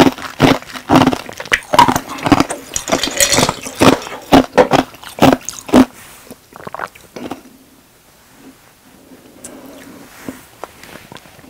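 Close-miked drinking: a person gulping a drink from a glass mug in quick swallows, a loud gulp every half second or so, stopping about six seconds in. After that only a few faint clicks.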